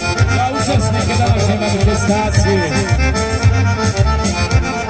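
Live Balkan folk band music: an accordion plays a fast-running melody over a steady bass beat, in an instrumental passage without singing.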